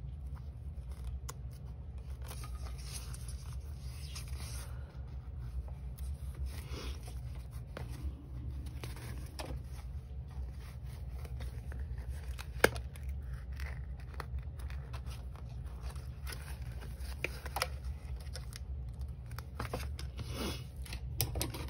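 Small scissors snipping loose threads off a die-cut fabric piece: scattered light snips and fabric rustling over a low steady hum, with one sharper click about twelve seconds in.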